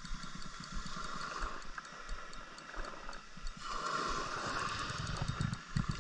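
Spinning reel on a feeder rod ticking in a steady, even rhythm as a heavy fish pulls line off the drag. From about two-thirds of the way in, handling noise and hiss grow louder.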